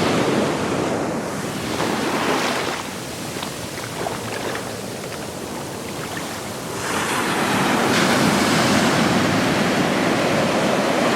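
Rushing surf, easing off about three seconds in and swelling again about seven seconds in.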